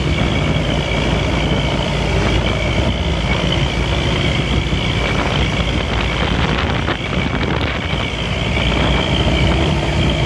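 Intercity coach bus under way: steady engine drone mixed with road and wind noise.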